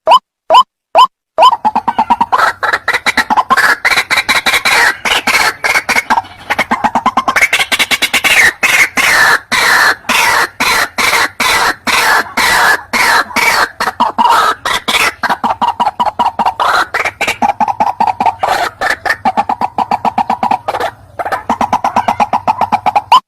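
White-breasted waterhen (ruak-ruak) calls from a lure-call recording. The call opens with evenly spaced short rising notes, about three a second. From about a second and a half in it turns into a dense, rapid run of harsh croaking calls, and drops back to the even notes at the very end.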